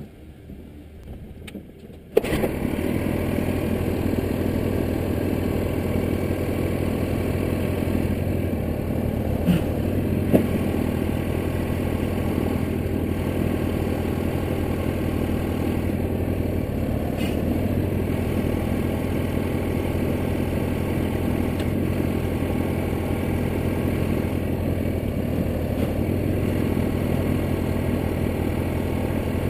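Portable bandsaw sawmill's gasoline engine starting abruptly about two seconds in, then running steadily at an even speed. A couple of sharp knocks come about ten seconds in.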